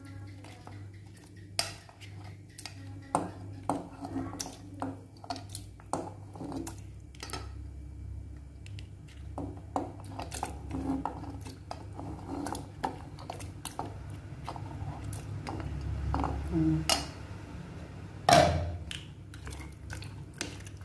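Irregular clinks and knocks of a bowl and tongs against a metal cooking pot as pork bones are tipped into the water and moved about, with one louder ringing clank near the end, over a steady low hum.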